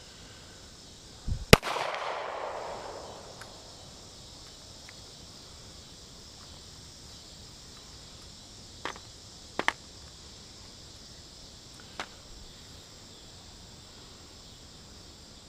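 A single handgun shot, one loud crack with its echo dying away over about a second and a half, followed later by a few much fainter sharp clicks. Crickets chirp steadily in the background.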